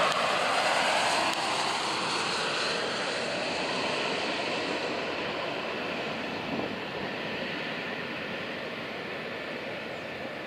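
Gulfstream business jet's twin rear-mounted turbofans as it passes on approach and lands. The jet roar is loudest at first, loses its hiss after about five seconds and slowly fades as the aircraft rolls away down the runway.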